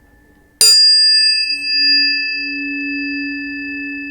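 A tuning fork struck about half a second in: a sharp metallic strike, then a steady ringing tone with bright high overtones, the highest fading within a couple of seconds while the main tone rings on.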